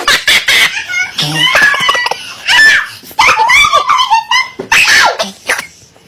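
Young voices laughing and screaming loudly in short, high-pitched bursts.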